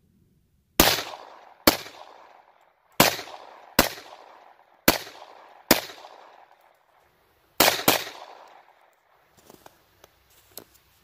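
Eight .45 ACP pistol shots, each cracking sharply and then echoing away, fired at roughly one-second intervals; the last two come in quick succession.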